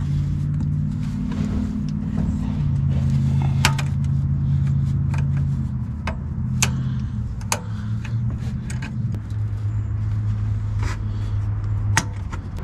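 Low steady drone of a running vehicle engine, shifting pitch a few times. Over it come scattered sharp metallic clicks of pliers working the spring clamp on the lower radiator hose.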